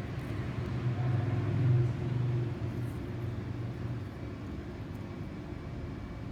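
A steady low mechanical hum, swelling a little between about one and two and a half seconds in.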